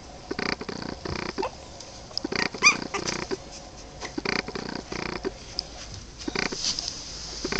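Three-week-old Boston Terrier puppies grunting and squeaking in a string of short calls, with one high squeak rising in pitch, the loudest, about two and a half seconds in.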